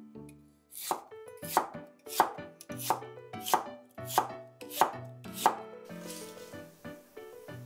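Kitchen knife chopping on a cutting board: about eight slow, evenly spaced strokes, roughly one every two-thirds of a second, then stopping.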